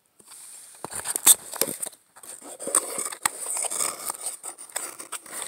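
A small white cardboard box being handled and opened among packing materials: irregular scraping and rustling with a few sharp clicks, the loudest about a second in.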